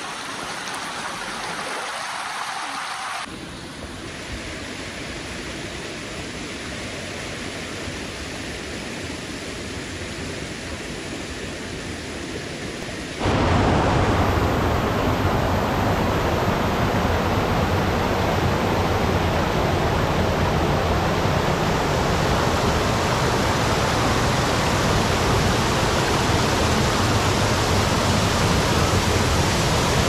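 Mountain creek water rushing over rocks and shallow rapids, a steady hiss that becomes suddenly louder and fuller about 13 seconds in.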